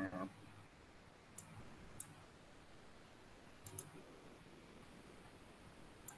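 Faint, sparse clicks of a computer mouse, a few single clicks and one quick pair spread over several seconds, as someone works on a computer.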